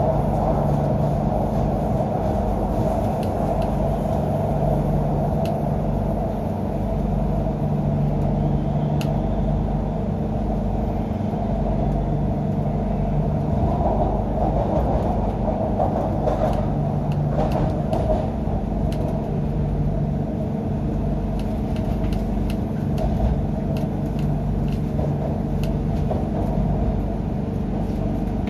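Interior running noise of an MTR Q-Train metro car in the tunnel: a steady rumble from wheels and running gear with a constant low hum and a scatter of faint clicks.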